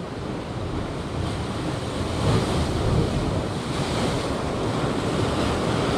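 Sea waves breaking and washing up through a rocky gully of lava rock, the rush of white water growing louder over the first few seconds, with wind buffeting the microphone.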